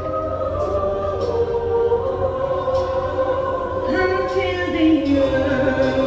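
Show choir singing held, sustained chords, with brighter, higher voices coming in about four seconds in.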